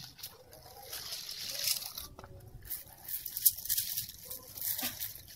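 A plastic-gloved hand laying marinated squid pieces onto aluminium foil and lemongrass stalks: faint, irregular rustling and crinkling of the glove and foil.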